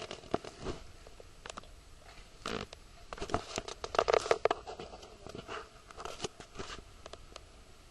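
Irregular rustling and clicking: a string of short scrapes and knocks, busiest about three to four and a half seconds in.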